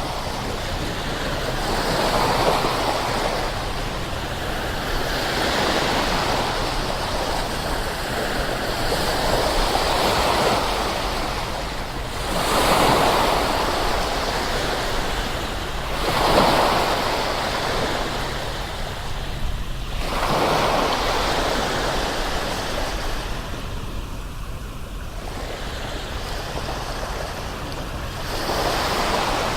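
Ocean surf: waves breaking and washing in, the rush of water swelling and ebbing every few seconds.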